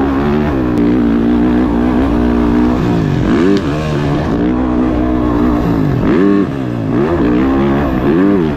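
Dirt bike engine under riding load, its pitch climbing and dropping several times as the rider accelerates, shifts and rolls off the throttle. Wind rumble on the helmet-mounted microphone sits underneath.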